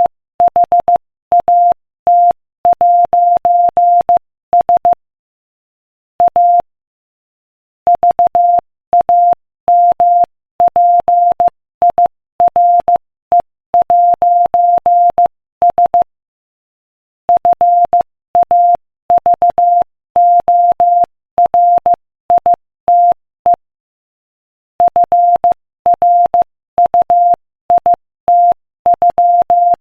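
Morse code sent at 15 words per minute: a single steady beep keyed on and off in short dots and longer dashes. There are pauses of a second or more between groups, about a fifth of the way in, just past halfway and near the end.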